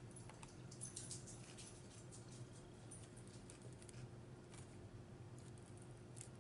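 Faint eating sounds: a scatter of small crisp clicks and crunches, thickest in the first few seconds, over a low steady hum.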